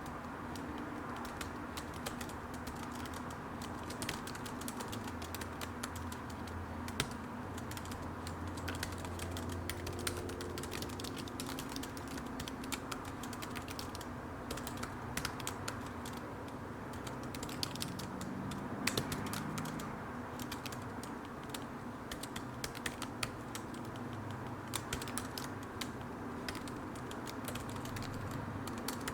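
Computer keyboard typing: irregular runs of keystroke clicks with short pauses between them, over a steady background hum.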